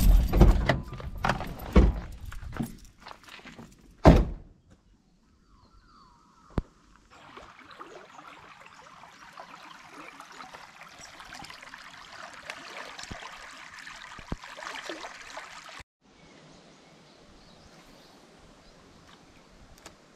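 Thunks and knocks of a Ford ute's door and cab, with one heavy door slam about four seconds in. After a short gap, the faint steady rush of a shallow, rippling river.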